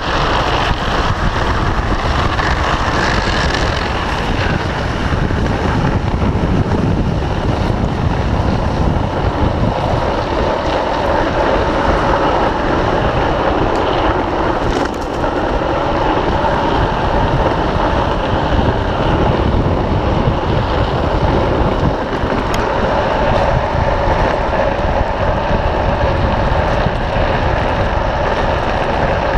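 Drift trike's PVC-sleeved rear wheels sliding and scraping on asphalt in a steady rush, mixed with wind noise on the microphone.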